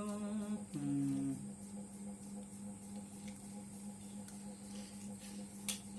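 A man's voice hums or sings briefly at the start, then a steady low electrical hum with a faint high whine remains; a sharp click sounds near the end.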